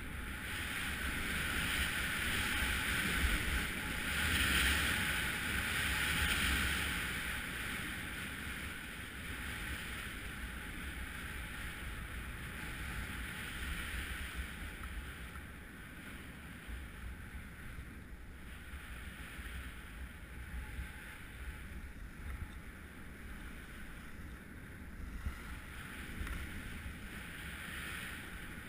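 A rider sliding down a snow slope over packed, tracked snow: a steady hiss and scrape of snow under the skis or board, with wind buffeting the microphone. It is loudest in the first few seconds, then settles a little lower.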